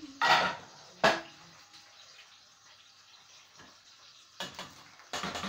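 Kitchen dishes and pots being handled on a counter: a short clatter, then a sharp knock about a second in, quiet, and a run of rattling and clicking near the end.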